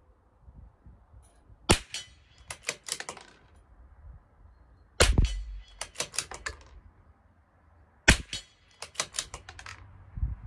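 Three shots from a CZ 457 LRP bolt-action .22 LR rifle, about three seconds apart. Each shot is followed by a quick run of metallic clicks as the bolt is worked to eject the case and chamber the next round.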